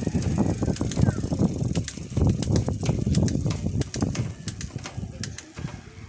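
Shimano Deore M6100 12-speed mountain-bike drivetrain being run by hand on a stand during a shifting test: the chain runs over the cassette and through the rear derailleur while the rear wheel spins, with a rapid run of mechanical clicking that thins out and dies down near the end.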